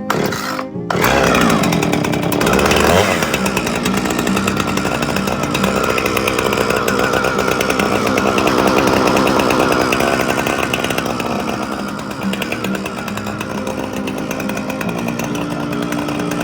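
Husqvarna 455 Rancher two-stroke chainsaw engine starting up about a second in, revving up over a couple of seconds and held at high revs, then dropping to a lower, steady speed about twelve seconds in.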